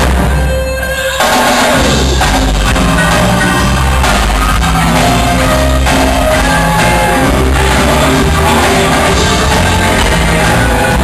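Live band playing loud, with horns, keyboard, bass guitar and congas, recorded through a small camera's microphone so the bass drones and overloads. In the first second the sound thins out briefly, then the full band comes back in.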